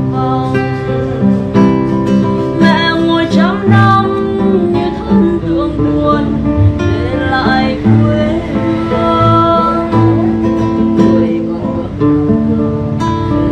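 A woman singing in Vietnamese, accompanied by an acoustic guitar played alongside her.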